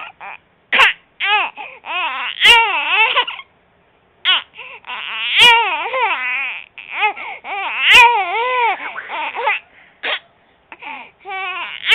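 Three-month-old baby crying in repeated wailing bursts, each cry rising and falling in pitch and broken off by short gaps and sharp catches: a cough-like way of crying.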